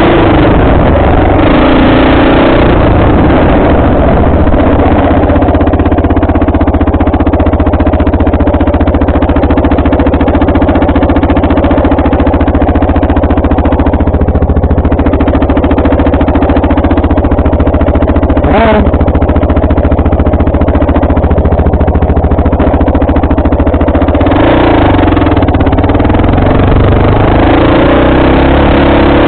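Off-road vehicle's engine running loud and close while riding, its pitch shifting as the throttle changes near the start and again near the end.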